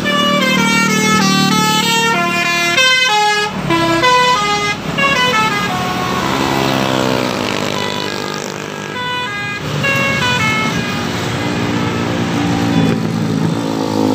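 Tour bus 'telolet' musical air horn playing a quick tune of stepped notes for about five seconds, then again in shorter runs about eight to eleven seconds in, over the engines and tyres of passing buses and motorcycles.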